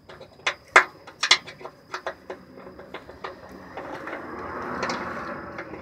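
Hand ratchet with a 13 mm socket on an extension clicking as it backs out the fuel filter bracket bolt: separate clicks at first, then a faster, steadier run of ratcheting for the last couple of seconds.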